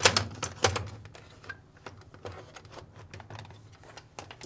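Plastic clicking and knocking as a Fisher & Paykel washer's motor control module, in its plastic housing, is worked into the plastic console and its back tabs are set into their openings. A few sharp knocks come in the first second, then lighter scattered taps.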